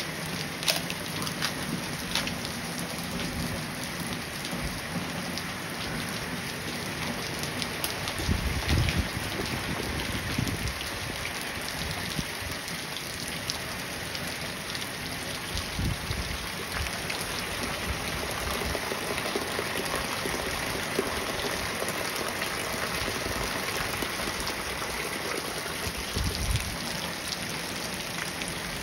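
Steady rain falling on a garden path flooded with a shallow sheet of running stormwater and on the lawn beside it: a dense patter of drops hitting water, with a few dull low thumps.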